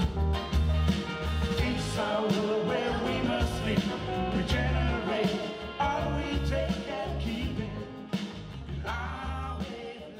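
Background music: a song with singing over a pulsing bass line and drums.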